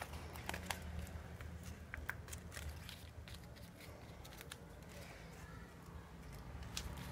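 Faint, scattered clicks and rustles of a paper cutout being handled and pressed down with sticky tape, over a steady low hum.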